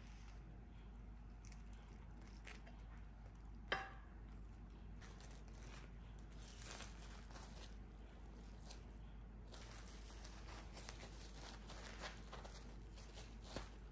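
Clear plastic cling wrap crinkling and rustling as a sandwich is wrapped by hand, with small ticks and rubs along the way. One sharp, short ringing clink about four seconds in is the loudest sound.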